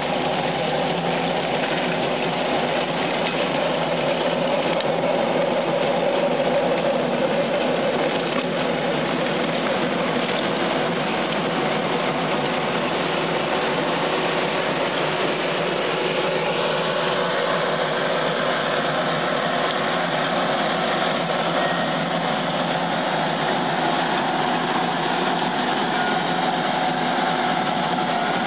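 An engine running steadily, with a slight change in its tone partway through.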